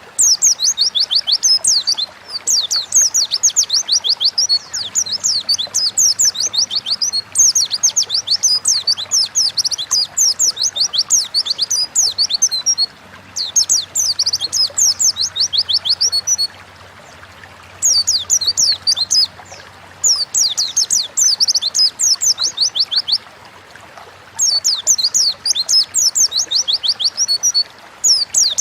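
White-eye (pleci) singing in long bouts of rapid, high twittering, each a quick run of downward-sliding notes lasting a few seconds, with short pauses between about seven bouts.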